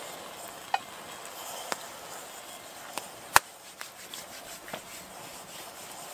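Wood campfire crackling, with a steady hiss and a scatter of sharp pops, the loudest about three and a half seconds in.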